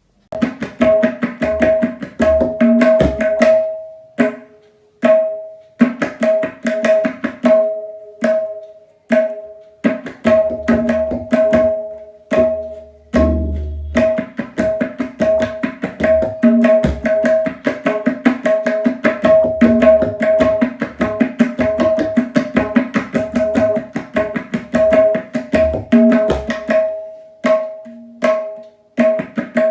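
Tabla played solo: quick strokes on the tuned right-hand drum ringing at one pitch, mixed with deep left-hand bass strokes, with a strong bass stroke about halfway through. It is a Teentaal qaida and its palta variations, played in phrases with short breaks between them.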